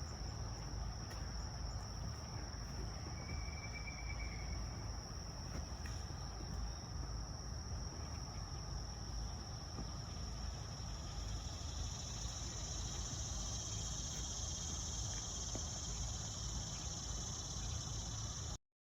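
Insects, likely crickets, chirring in a steady high-pitched chorus that swells about halfway through, over a low rumble. Cuts off suddenly near the end.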